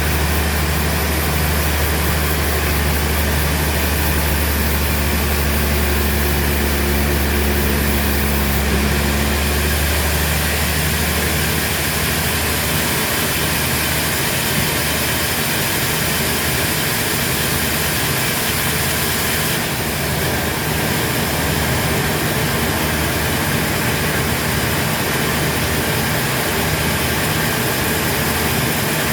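Sawmill machinery running steadily with an engine-like drone. A deep hum underneath drops away about a third of the way through, and the running noise carries on.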